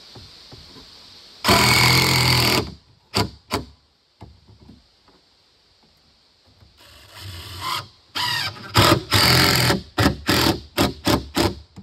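A power tool with a motor, switched on and off in bursts: one steady run of about a second, then two short blips, then a longer series of runs and quick on-off pulses near the end.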